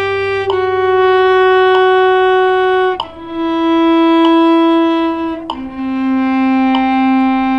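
Cello playing slow, sustained bowed notes, a new note about every two and a half seconds, each one lower than the last, with a fainter low note held underneath.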